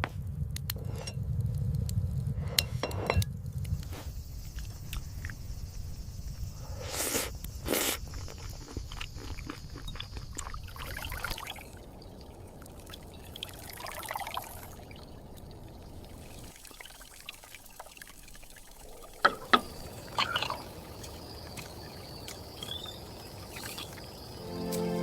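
Water being poured and dripping, with scattered small clinks and knocks.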